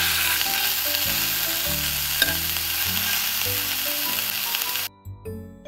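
Chicken breast sizzling in oil in a nonstick frying pan, with a single click about two seconds in. The sizzle cuts off suddenly near the end, leaving soft background music.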